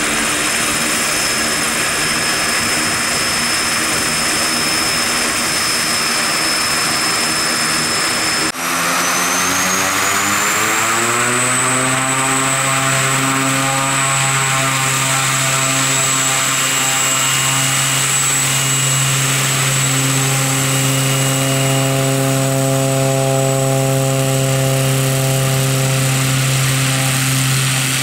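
Pilatus PC-6 Turbo Porter's PT6A turboprop engine running at low power with the propeller turning, a steady high whine above the engine hum. After a brief break about eight and a half seconds in, the engine and propeller tones rise over a few seconds as power comes up for taxiing, then hold steady at the higher pitch.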